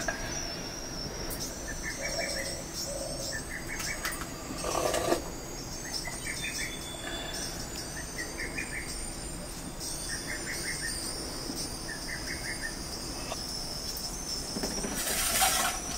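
Rural background ambience: a steady high insect drone, with a short, rapid chirping call repeated six times, about every two seconds. A louder, noisier sound rises near the end.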